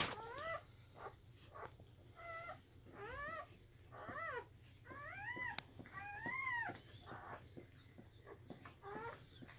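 Newborn German Shepherd puppies crying: a string of short, high, mewing squeals that rise and fall, about seven of them.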